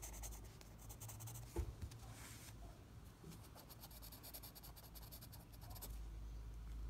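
Pencil shading on drawing paper: faint, rapid scratching strokes of the graphite, stopping near the end.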